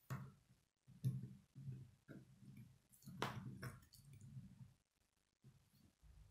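Plastic K'nex pieces clicking and rattling as hands handle and snap them together, with a sharp click right at the start and another about three seconds in.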